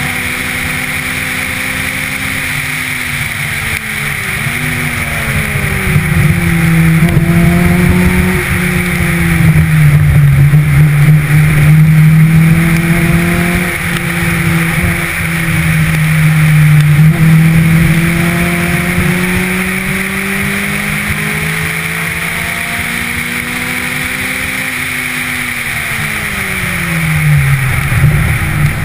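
Car engine accelerating hard and easing off by turns, its pitch rising and falling as it is driven through a cone course, with the revs dropping sharply near the end. A steady hiss of wind and tyre noise runs underneath.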